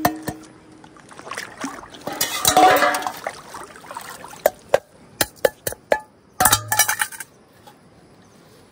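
Pots and dishes clinking and knocking against each other, with a short rush of water about two seconds in, as when utensils are washed at the water's edge. The clinks come singly and in a quick cluster near the middle, then stop.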